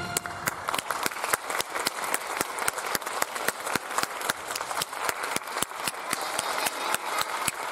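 Audience applauding: many hands clapping steadily, starting just as the music stops.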